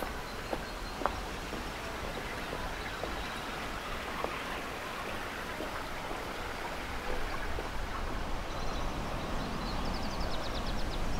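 Outdoor ambience: a steady, even rush of noise with a few light clicks, growing a little louder near the end, when a rapid high ticking trill comes in.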